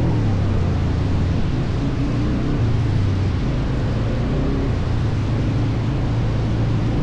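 ATV (quad bike) engine running steadily while riding, its pitch shifting a little now and then, under a steady haze of wind or road noise.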